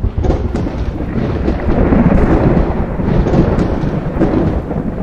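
Intro sound effect: a loud, continuous rumble like rolling thunder, dense and noisy, under an animated smoke-cloud logo reveal.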